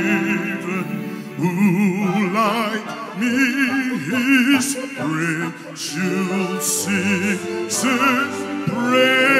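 A solo singer performing in an operatic style, with a wide vibrato in sung phrases, over a sustained instrumental accompaniment.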